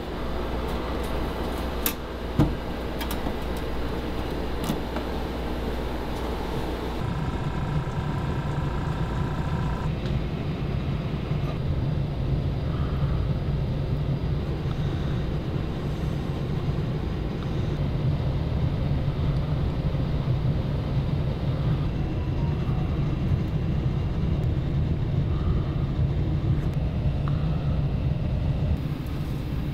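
Steady low mechanical hum of workshop background noise, its character shifting about seven and ten seconds in.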